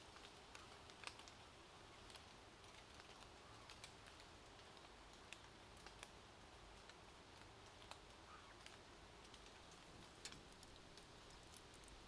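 Near silence with faint, irregular ticks scattered through it.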